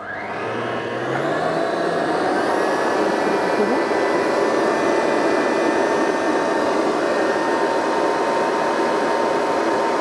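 Kenwood stand mixer's electric motor starting up and kneading donut dough in its steel bowl, rising in pitch and loudness over the first two seconds as it comes up to speed, then running steadily.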